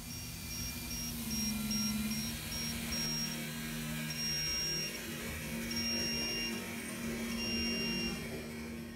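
Electronic music: a held low note under a high synth tone that beeps in short even pulses, changing to longer held notes about halfway through.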